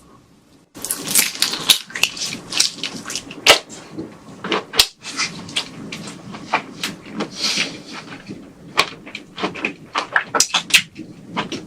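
Close-miked eating of a giant prawn: a dense, irregular run of sharp crackles and crunches, starting about a second in.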